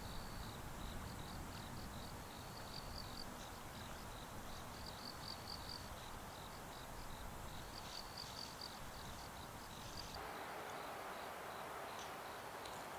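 Crickets chirping in regular trains of short, high pulses, over a faint low rumble that changes to a soft hiss about ten seconds in.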